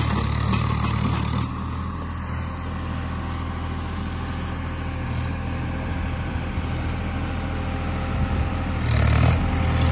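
Swaraj 963 tractor's three-cylinder diesel engine running steadily at low speed as the tractor drives toward the microphone. It dips slightly after about a second and a half and swells briefly louder about nine seconds in.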